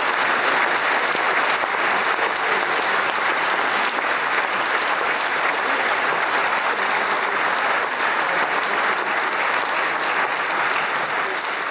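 Audience applause, a dense steady clapping that thins a little near the end.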